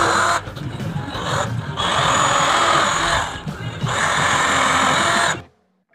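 Power drill boring screw holes in a door, running in several bursts with short pauses between, then cutting off abruptly shortly before the end.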